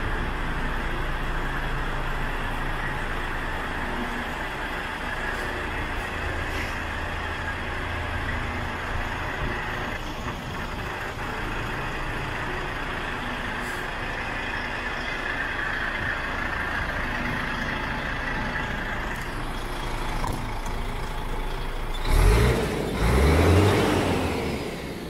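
DAF XF105's Paccar MX 460 six-cylinder diesel engine idling steadily. Near the end, loud thumps and rumbling cover it.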